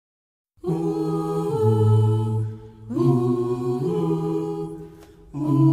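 Several voices singing long held chords without accompaniment, in slow chant-like phrases with short breaks between them.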